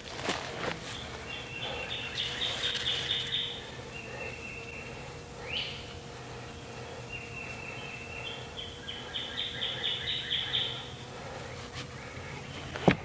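A songbird singing in the woods: a run of quick repeated notes about a second in and again around ten seconds, with a short upward-sweeping note between. A sharp knock just before the end.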